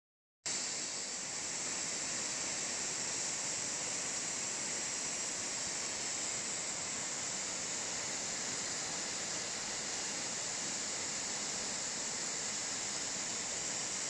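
Tall, thin waterfall: water falling down a high limestone cliff and splashing into the rock bowl below, a steady hiss.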